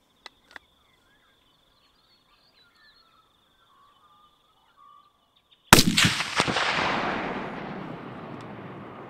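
A single .308 rifle shot from a Desert Tech SRS cracks about two thirds of the way in. Its report rolls away across the open country and fades slowly over the next three seconds.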